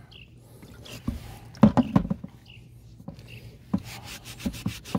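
A steel chainsaw bar knocking and clattering against a plastic tub of vinegar as it is lifted out, loudest about two seconds in. Then a scrub brush scraping along the wet, rusty bar in short strokes near the end, rubbing off vinegar-loosened rust.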